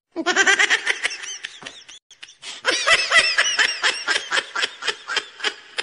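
People laughing hard in rapid, pulsing bursts, with a short break about two seconds in.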